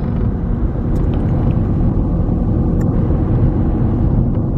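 Steady low rumbling noise, heaviest in the bass, with no distinct events.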